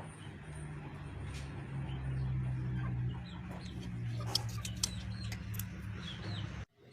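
Birds chirping over a steady low hum, with scattered sharp clicks; the sound cuts off suddenly near the end.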